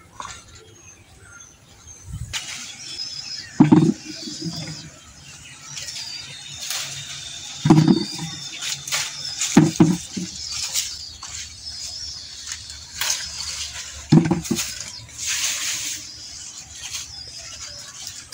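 Lemons being picked and dropped into a plastic bucket: a few dull knocks spaced several seconds apart, two of them close together about ten seconds in. Leaves rustle as branches are pulled, over a steady high chirping background.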